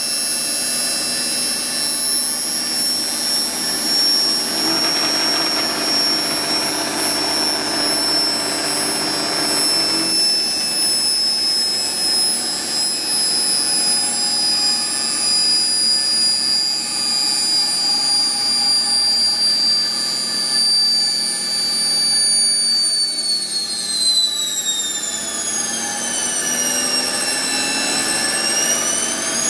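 Old Hodson and Gault DC generator test rig running: the belt-driven generator and the small universal motor it powers make a steady high-pitched machine whine. Near the end the whine falls in pitch as the speed drops, then starts rising again.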